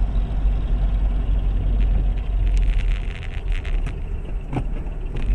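Car on the move: steady low rumble of engine and road noise, with a cluster of quick clicks and rattles about halfway through and one sharp knock a little after four seconds in.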